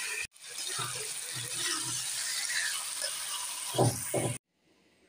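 Curry sizzling in a nonstick frying pan as it is stirred with a steel spatula, with two dull knocks of the spatula against the pan near the end. The sound cuts off suddenly about four seconds in.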